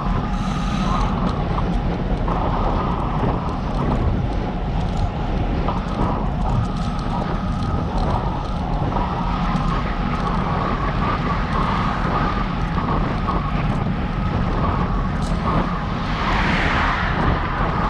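Wind rushing over the microphone of a camera on a moving bicycle, over a steady low rumble of the ride, with a brief swell of hiss near the end.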